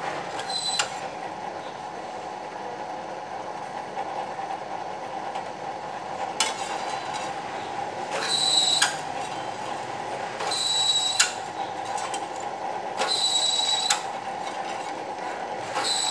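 Bench drill press running steadily while its bit is fed down through a thin metal plate to drill holes. Each cut, about a second long, brings a louder high squeal, and this happens several times.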